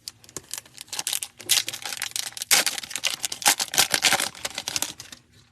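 Football trading cards and a pack's wrapper being handled close to the microphone: a rapid, uneven run of crisp clicks and crinkles, with louder bursts through the middle, as a pack is opened and its cards are flicked through.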